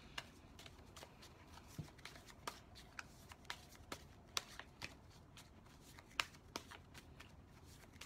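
A tarot deck being shuffled by hand: faint, irregular card snaps and flicks, roughly two a second.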